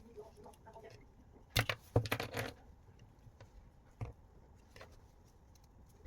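Sharp clicks and knocks of a car door lock and tools being handled during repair: a quick cluster about one and a half seconds in, and a single knock about four seconds in.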